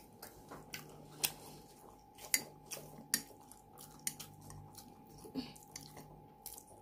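A person chewing toasted garlic bread, with irregular sharp crunches and mouth clicks, over a faint steady hum.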